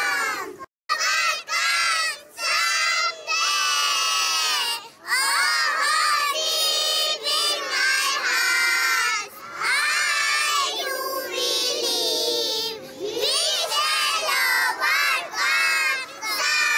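Young children singing a morning prayer together in unison into a microphone, in loud phrases with short breaks between them and a brief dropout about a second in.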